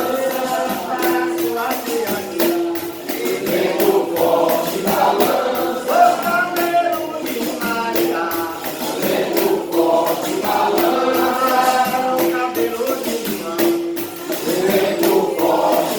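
Brazilian folk song sung with voices over a steady, evenly spaced hand-percussion beat.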